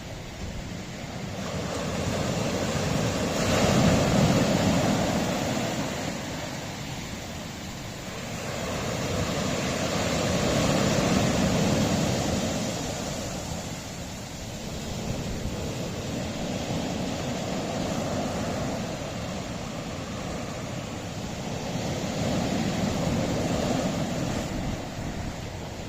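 Mediterranean sea waves washing onto a rocky shore, the surf rising and falling in four slow swells.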